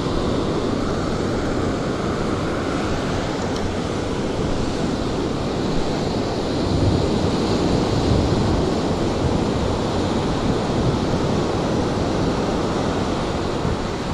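Ocean surf washing onto the beach, a steady rush that swells a little louder about halfway through, with wind buffeting the microphone.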